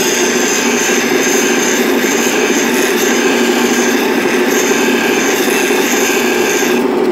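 Bench grinder running with a steel skew chisel held free-hand against its grinding wheel to sharpen the bevel: a steady grinding hiss over the motor's hum. The high grinding hiss drops out shortly before the end while the motor keeps running.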